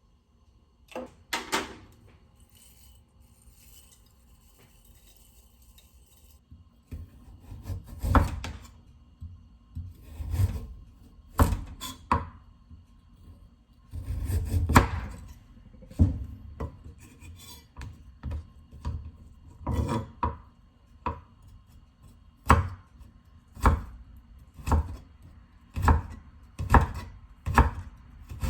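Food being prepared on a wooden cutting board: scattered knocks and scrapes with a light rustle early on, then from about halfway a steady knife chopping at roughly one cut a second.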